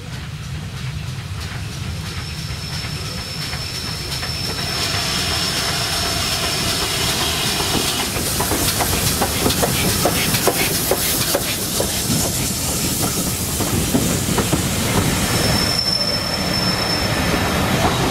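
A GWR 4200 class 2-8-0 tank locomotive and its coaches run past close by, getting louder as they near. Clicking from wheels over rail joints builds as the engine and the first coaches go by. A thin high wheel squeal is heard twice, early on and again near the end.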